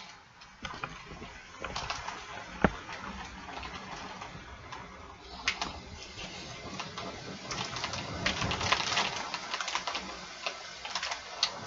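Heavy rain falling in a storm: a dense patter of many small drop clicks that swells louder from about seven seconds in. There is one sharp knock about two and a half seconds in.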